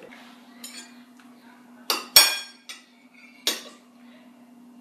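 Four sharp clinks of cutlery against dishes, the loudest about two seconds in, each ringing briefly, over a faint steady hum.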